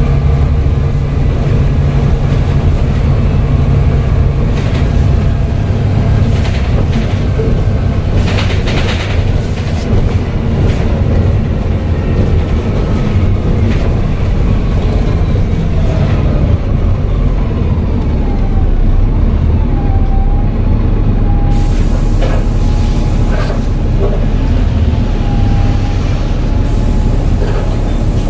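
Volvo B7TL double-decker bus under way, its six-cylinder diesel running with a steady low drone and rattles. Through the second half a thin turbo whistle wavers up and down in pitch. Two short bursts of hiss come near the end.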